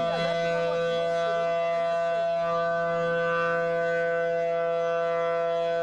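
Outdoor tornado warning siren sounding a steady tone of two pitches together, held without rising or falling.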